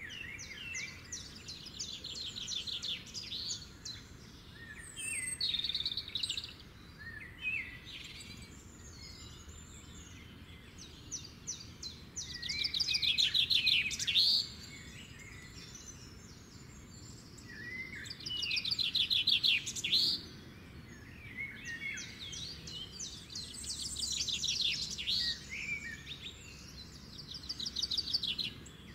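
Songbirds singing in a run of phrases of rapid trilled notes, each lasting a second or two, over a faint steady outdoor hiss. The loudest phrases come a little before the middle and again about two-thirds of the way through.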